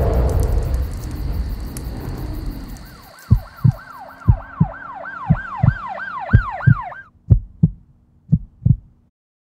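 Sound effects: a low rushing fire noise for about three seconds, then an electronic yelp siren rising and falling several times a second over a heartbeat thumping in pairs. The siren cuts off about seven seconds in, and the heartbeat thumps on for another second or two.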